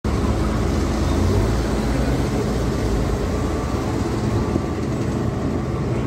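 A heavy diesel engine running steadily at a low, even pitch, mixed with outdoor site noise.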